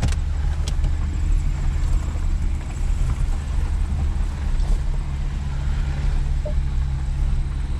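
Off-road truck's engine running steadily at low revs under load, heard from on board, with a few sharp clicks from the vehicle over rough ground near the start.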